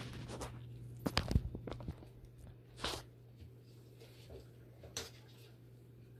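Gloved hands working among the tubing and fittings inside a dialysis machine, freeing the check valve: a cluster of clicks and knocks in the first two seconds, a short rustle about three seconds in and a single click near five seconds, over a steady low hum.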